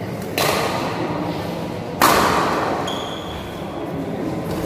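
Two sharp racket hits on a badminton shuttlecock about a second and a half apart, the second the louder, each echoing and fading slowly in the large hall.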